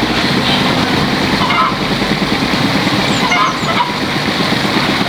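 An engine running steadily, with chickens calling faintly now and then.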